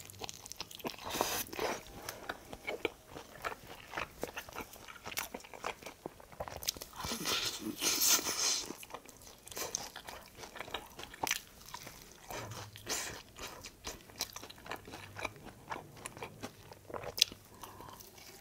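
Close-up biting and chewing of sauced fried chicken (yangnyeom chicken): crisp crunches of the fried coating between quieter chewing, with the loudest crunching about a second in and again around seven to eight seconds in.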